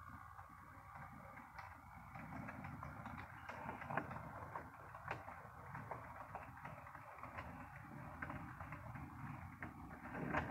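HO scale model diesel locomotive pulling a short string of freight cars: a faint running hum from the motor and gears, with light clicks from the wheels passing over rail joints and switches.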